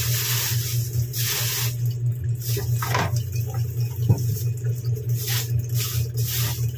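Wet handling noises from raw meat in plastic bags being moved about: bursts of rustling and sloshing, with a single knock about four seconds in, over a steady low hum.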